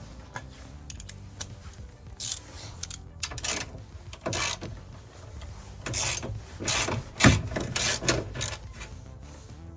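Socket ratchet clicking in a series of short bursts as it undoes the window regulator bolts inside a car door. The loudest burst comes about seven seconds in.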